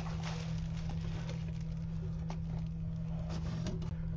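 Faint crinkling of bubble wrap and cardboard with a few soft clicks as a bubble-wrapped package is handled and lifted out of a box, over a steady low hum.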